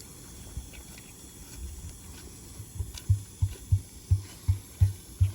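A steady run of about eight dull, low thumps, roughly three a second, starting about halfway through, over faint outdoor background.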